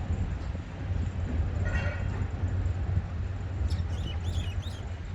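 City park ambience: water fountains hissing over a steady low rumble of distant traffic and construction. A bird gives a quick run of about five short chirps near the end.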